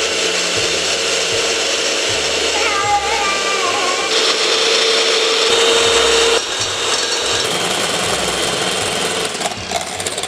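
Electric hand mixer running with a single beater, whisking eggs and sugar in a steel bowl, with a steady motor whine. The whine drops away and the sound gets a little quieter about two-thirds of the way through.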